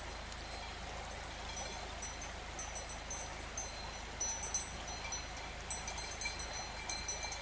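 Cowbells clinking irregularly, more often and louder in the second half, over the steady rush of a shallow river running over stones.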